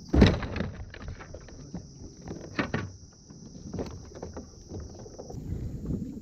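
Knocking and splashing at the side of a fishing kayak as a hooked fish is handled over the side: one sharp loud hit just after the start, then smaller knocks about two and a half and four seconds in.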